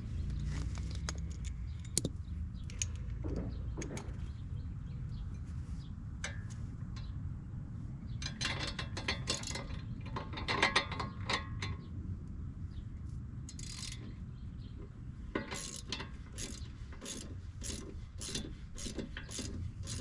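Hand ratchet wrench clicking as suspension bolts are tightened on the front strut. There are scattered clicks, a dense run of clicking midway, and near the end a regular run of ratchet strokes about two a second.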